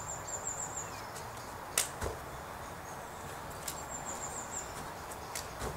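Sneakers landing on a grass lawn during light running and tuck jumps: a few soft, sharp knocks, the strongest about two seconds in, over a steady outdoor background hiss. High chirping trills sound twice.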